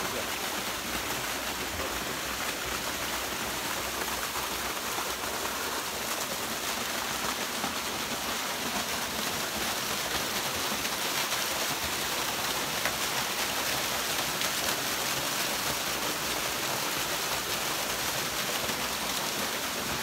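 A small waterfall running steadily, two thin falls splashing down the rock into a pool.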